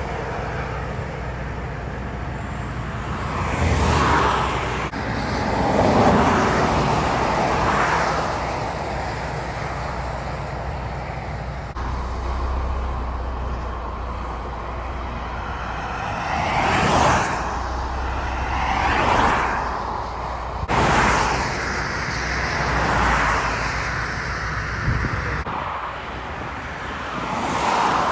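Highway traffic: a steady road rumble with several vehicles passing one after another, each swelling up and fading away within a couple of seconds.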